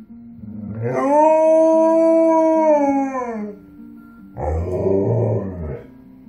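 Alaskan Malamute howling: one long howl whose pitch drops at the end, then a shorter, rougher howl about four seconds in.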